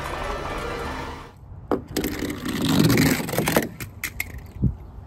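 Animated-film soundtrack with music and a car's engine and tyres, cut off suddenly about a second in. It is followed by a few sharp knocks, a loud rushing noise lasting over a second, and a single thump near the end.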